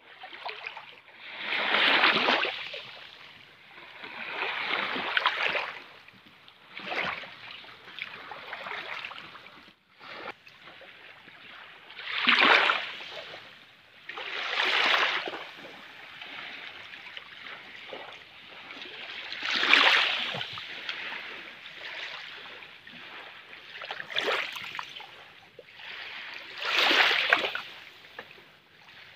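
Small waves washing up over a shell-strewn sand beach close by, each wash a rush of water that swells and fades, about eight times, every two to five seconds.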